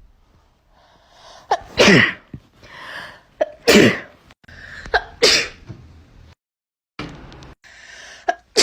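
A person sneezing three times in a row, each sneeze preceded by an audible sharp in-breath and falling away in pitch. After a short silent gap, another sneeze begins near the end.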